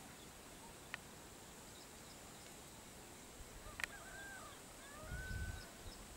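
Quiet outdoor ambience with a few short, faint bird chirps about four seconds in, two sharp clicks, and a brief low rumble near the end.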